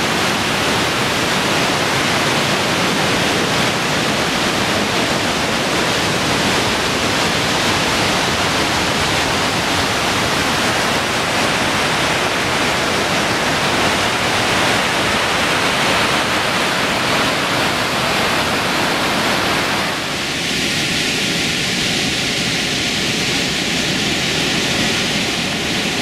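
Loud, steady roar of the Lehner waterfall's rushing water close by. About twenty seconds in, the sound changes abruptly and a few faint steady tones join it.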